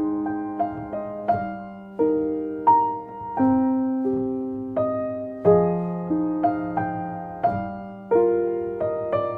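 Background music: a slow, gentle solo piano piece, single notes and soft chords struck every half second or so and left to ring and fade.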